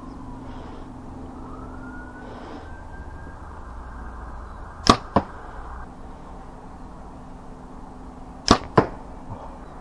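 Two arrow shots. Each is a bow's release followed about a third of a second later by the arrow striking a cheap 3D archery target patched with expandable foam. The first comes about halfway through and the second near the end.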